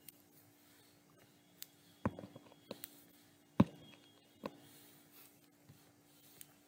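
Faint, scattered sharp taps and clicks of a stylus on a digital writing tablet, about eight in all, with a small cluster about two seconds in and the loudest a little past halfway. A faint steady hum lies under them.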